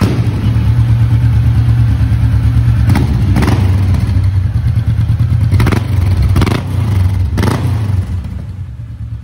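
Kawasaki Vulcan S's parallel-twin engine running through an aftermarket Arrow exhaust, a steady deep pulsing idle. Several short sharp sounds break over it, and the engine sound drops somewhat near the end.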